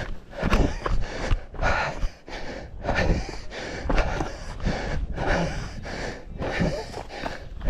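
Strong wind buffeting the microphone in irregular gusts over a constant low rumble.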